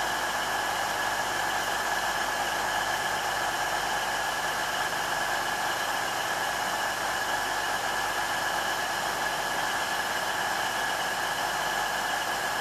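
A steady mechanical hum with a constant high whine over a hiss, unchanging throughout.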